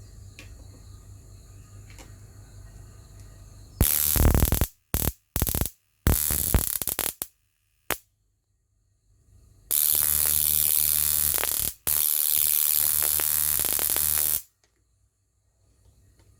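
High-voltage DC arcs from a 555-timer-pulsed microwave-oven transformer, rectified into ceramic doorknob capacitors. The arcs are snappy. After a faint hum, several short, loud bursts of arcing come about four seconds in, and two longer stretches of steady buzzing arc run from about ten to fourteen and a half seconds, each cutting off suddenly.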